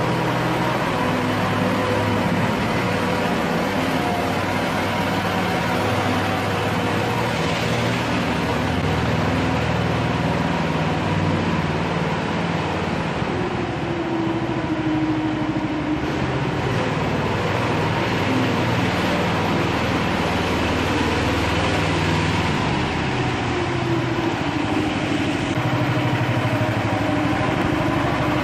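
Small engine of a home-built hot rod kart running steadily while it is driven, its pitch rising and falling a little.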